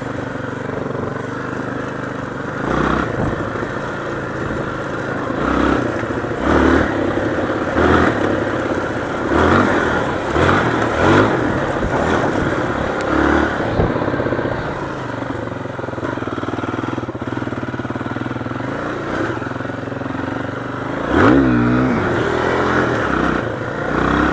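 Motorcycle engine running at low revs, blipped up in short bursts of throttle several times, with a longer rev that rises and falls near the end, on ground the rider calls very slippery.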